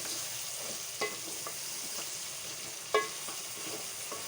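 Beef, onions and tomato paste sizzling in hot oil in a cooking pot while being stirred. The stirring utensil knocks against the pot twice with a short ringing clank; the second knock, about three seconds in, is the loudest.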